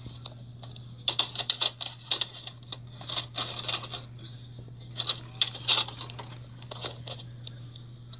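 Irregular bursts of clicking, scraping and rustling from objects being handled close to the microphone, over a steady low electrical hum.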